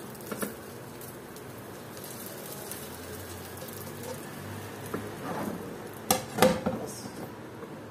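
Egg-soaked bread frying in a nonstick pan with a steady low sizzle, and a couple of light spatula taps on the pan near the start. About six seconds in, a ceramic plate is set over the pan to flip it, with two sharp clatters of plate on pan, the loudest sounds.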